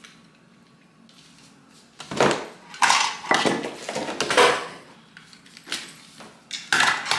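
Hard plastic attachments of a pet-grooming vacuum kit clattering and clicking against each other and a wooden tabletop as they are handled and pulled off the hose. Quiet for about the first two seconds, then a run of sharp knocks with a short lull before more near the end.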